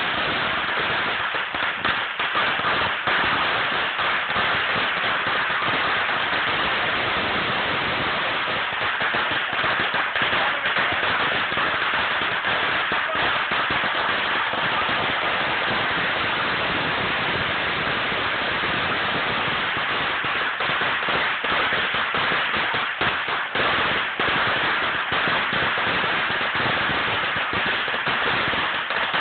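A huge string of firecrackers going off without a break: a dense, steady crackle of countless small bangs.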